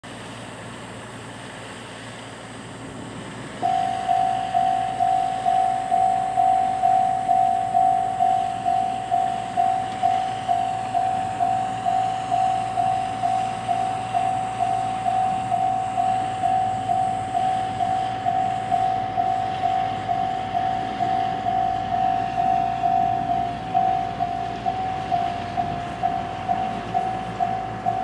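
Japanese level-crossing electronic warning bell, JR Central-type tone, starting suddenly about four seconds in and striking about twice a second, each strike dying away: the crossing is warning of an approaching train.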